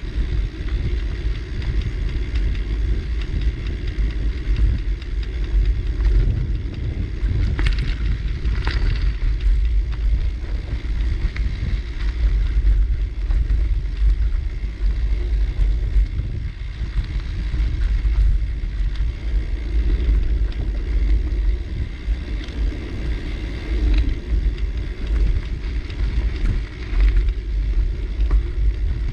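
Riding noise from a bicycle in motion: a steady low rumble of wind on the microphone and rolling tyres, with a few brief rattles about eight seconds in.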